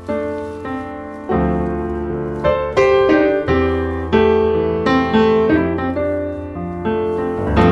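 Background piano music, notes struck one after another and each fading away.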